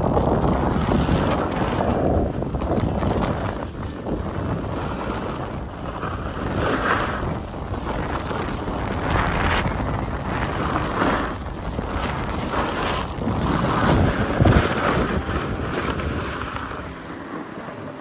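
Wind buffeting the microphone during a fast downhill run, over the hiss and scrape of edges sliding on groomed snow, swelling briefly with each turn.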